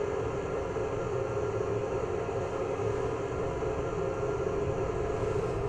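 Class 47 DCC sound decoder playing the Sulzer 12LDA28 diesel at idle with its radiator cooling fan running, a steady whirring hum through the model's speaker.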